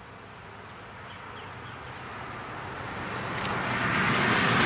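A vehicle approaching along the road, its noise growing steadily louder.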